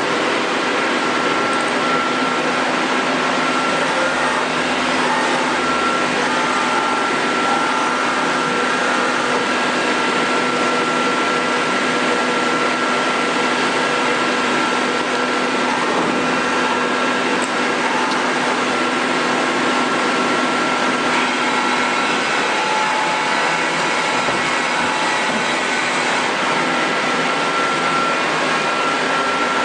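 Amera Seiki T415 CNC lathe running: a steady mechanical whir with a constant high whine, whose lower tone drops out and a higher one comes in about two-thirds of the way through.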